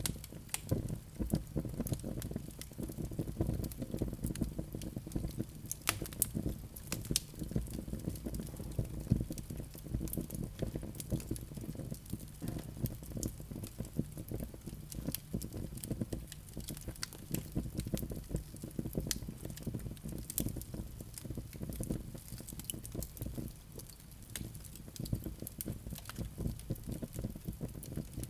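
Fireplace fire of flaming live coals crackling, with frequent sharp pops and snaps over a steady low rush.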